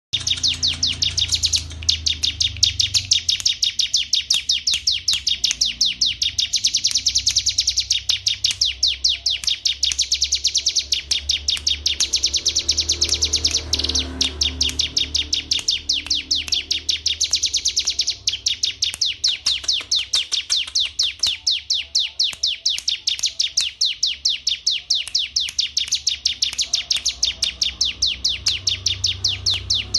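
Domestic canary singing a long continuous song of rapid, high-pitched repeated notes, about ten a second, with barely a break.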